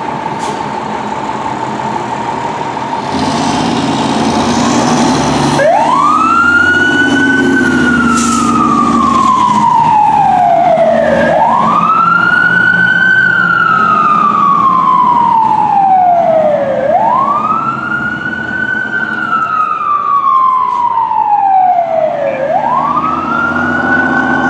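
Fire engine pulling away with its diesel engine running. After a hiss lasting about two seconds, its siren starts about five seconds in and wails four times: each cycle climbs quickly, then falls slowly over several seconds.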